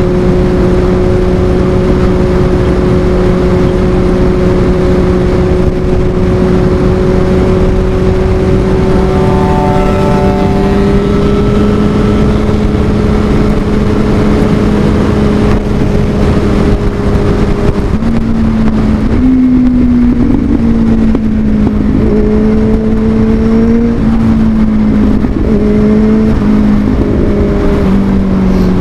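Small motorcycle engine running while riding, heard under loud wind rush. Its pitch holds steady and creeps slowly up for the first half, then rises and falls with throttle changes through the second half.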